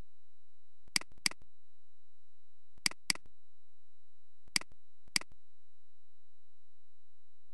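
Computer mouse clicking: three quick pairs of sharp clicks, about a second and a half apart, over a faint steady hum.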